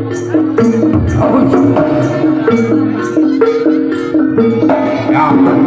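Live Javanese gamelan music for a barongan dance: bronze pot gongs and metallophones play a melody of held notes stepping up and down, over drum strokes with sharp hits about twice a second.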